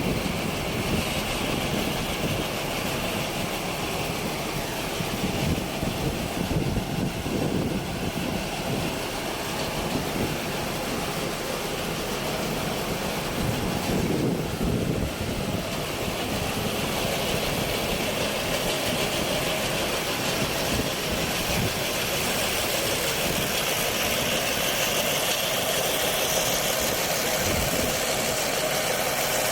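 Engine of a lavender harvesting machine running steadily, with no marked changes in speed.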